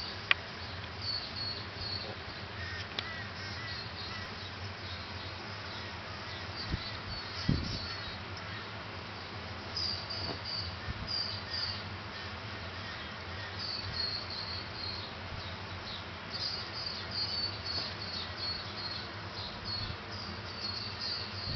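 Miniature dachshund scratching, pawing and burrowing in a fleece blanket on a bed, making soft rustling and scraping. Runs of short high-pitched chirps recur throughout, with a couple of soft thumps about seven and a half seconds in.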